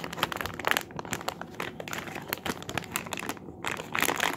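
Plastic squishy packaging crinkling as it is handled and turned over in the hands, with a brief lull about three and a half seconds in.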